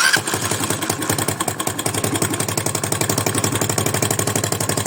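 Single-cylinder 200cc motorcycle engine starting and then idling with a steady, rapid beat. The engine is run to show a strange noise, which the mechanic suspects may be a slightly bent valve touching the piston at valve overlap.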